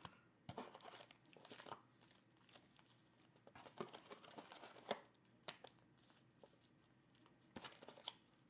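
Foil trading-card pack wrappers crinkling faintly and intermittently as the packs are pulled out of the box and stacked by hand.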